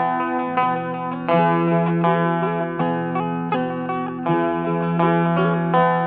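Background music on a plucked string instrument: a repeating melodic phrase over a sustained low drone.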